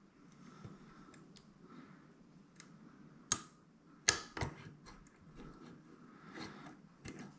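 Faint metallic ticking and scraping of a dimple lock pick working the pins of a dimple lock cylinder under tension, with a few sharper clicks about three and four seconds in.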